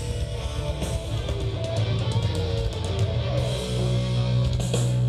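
Live rock band playing through a big outdoor PA: electric guitars and drum kit, settling into a long held chord about three and a half seconds in.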